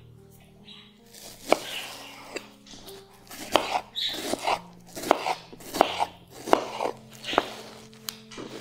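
Kitchen knife slicing through watermelon on a hard cutting board: a series of cuts, each ending in a sharp knock of the blade on the board, starting about a second and a half in.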